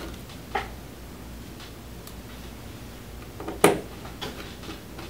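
Small clicks and taps of hands and a small Phillips screwdriver removing the laptop display's hinge screws, with one sharp click about three and a half seconds in as a removed screw is set down on the parts mat.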